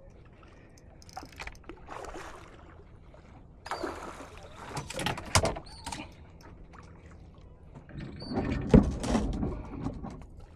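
Water sloshing and knocking against a kayak hull while a hooked fish is fought on a bent spinning rod. It comes in two louder bursts, about four seconds in and again about eight seconds in.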